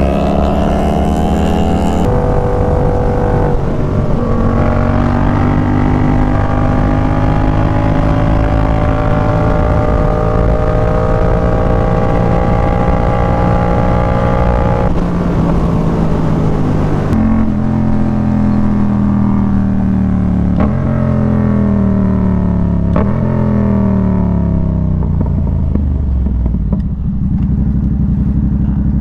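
Motorcycle engine under way, pitch climbing slowly as it pulls through a gear. About halfway through, the throttle closes and the revs fall, with two short jumps back up as it shifts down, settling to a lower steady run near the end.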